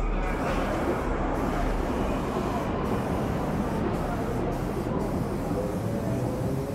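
Aerosol spray-paint can hissing in repeated bursts as paint is sprayed onto a mural wall, over a steady rumble of traffic.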